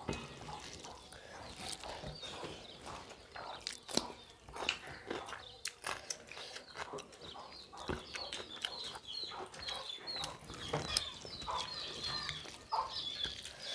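Two people eating fish khichdi with their hands: wet chewing and lip-smacking, with fingers mixing rice on steel plates, heard as a string of short smacks and clicks.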